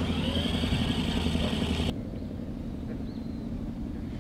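Small engine running with a high whine over a low hum. The sound cuts off sharply about two seconds in, leaving a quieter low engine drone.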